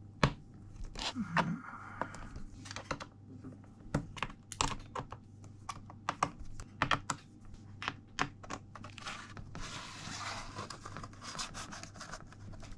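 Small irregular clicks, taps and scrapes of a precision screwdriver and small screws being worked out of a MacBook Air's aluminium bottom case, with a longer scratchy scraping about ten seconds in. A faint steady hum lies underneath.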